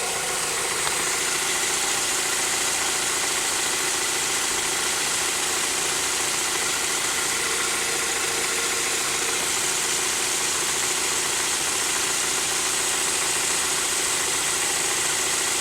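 A 2015 Ford Fusion's 2.5-litre Duratec four-cylinder engine idling steadily, run after a fresh oil change so the new filter and drain plug can be checked for leaks.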